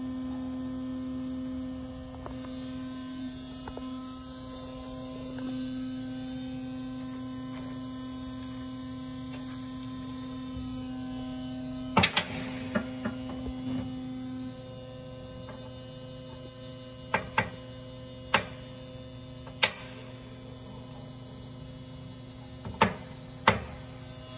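Horizontal automatic bandsaw running with a steady electric hum. From about halfway, sharp metallic clanks sound as short cut-off pieces of bar drop onto the steel outfeed table, about ten in all.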